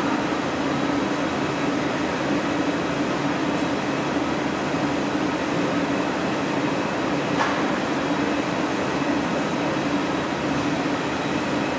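Steady noise of a glassblowing hot shop's equipment: gas-fired glory holes and furnaces burning and ventilation fans running, with a steady low hum and a couple of faint taps.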